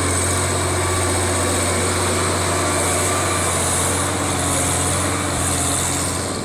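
Heavy construction machine's engine running steadily, a constant low hum with a high hiss over it.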